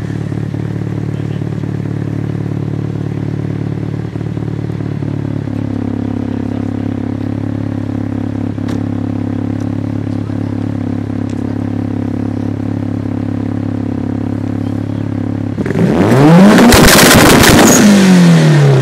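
Mitsubishi Lancer Evolution IX's turbocharged 2.0-litre four-cylinder engine idling steadily at the exhaust tailpipe, then revved hard once near the end, its pitch rising and then falling back.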